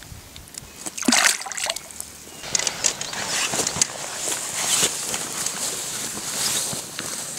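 A short, loud burst of noise about a second in, then steady swishing and rustling of footsteps through tall grass.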